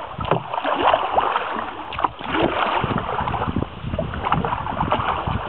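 Canoe being paddled: water splashing and trickling against the paddle and hull in irregular strokes, with gusts of wind rumbling on the microphone.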